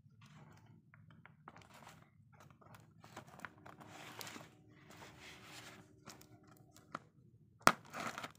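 Cardboard parcel handled and turned over on carpet: soft scraping and rustling of the box, with a sharp knock near the end followed by more rustling.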